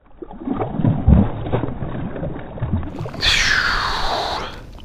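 Muffled, heavy water splashing and low thumps from a hooked bass thrashing at the surface in thick weeds. About three seconds in comes a falling whoosh that fades out.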